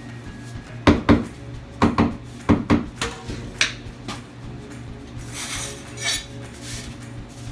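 Ceramic wall tiles being set into adhesive: a run of sharp knocks and clinks, several in pairs, over the first few seconds, then a short scraping sound.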